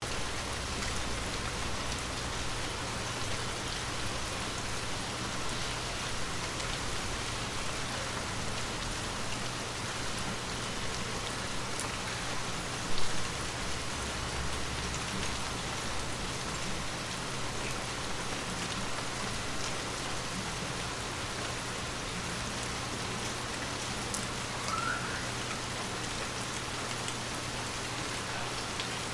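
Steady rain falling and pattering on a window pane, with one brief louder tap about halfway through.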